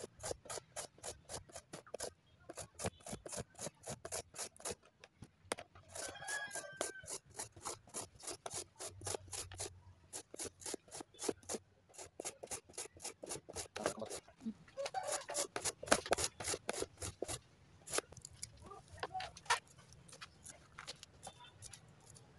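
Carrot being grated on a plastic hand grater with metal blades: quick, even grating strokes, about four a second, broken by a few short pauses.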